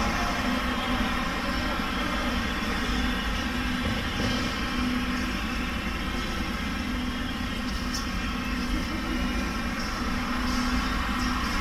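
Steady mechanical hum with several even tones over a low rumble, unchanging throughout.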